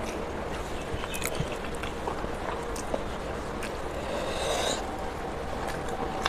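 Eating by hand from a steel plate: fingers mixing and squeezing rice with curry and scraping the metal, with chewing and small mouth clicks over a steady background hiss. A brief squeaky sound about four seconds in is the loudest moment.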